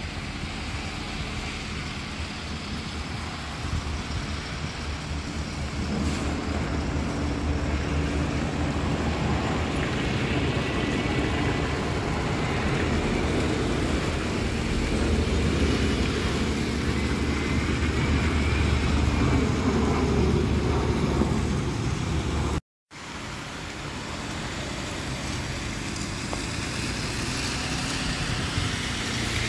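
Diesel engines of double-decker buses running close by, the engine note growing steadily louder as a bus moves past, with road noise. Near the end, after a sudden break, another bus is heard running more quietly, getting louder again.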